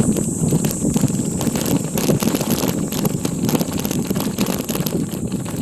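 Bicycle riding over a rough forest road: wind rumbling on the microphone with tyre noise and frequent small rattling knocks from the bike.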